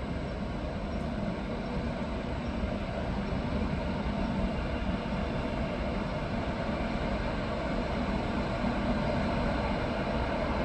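A train running along the tracks, a steady rumble that grows slowly louder.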